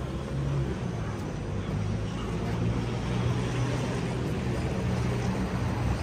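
A motor vehicle's engine running with a steady low hum, over a wash of city street noise.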